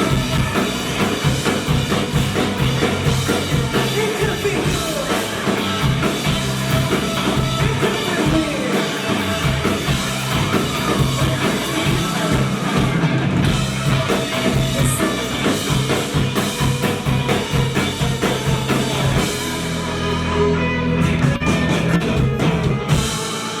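Rock band playing live: drum kit, bass and guitar, with no lead vocal. Over the last few seconds the beat gives way to a held chord.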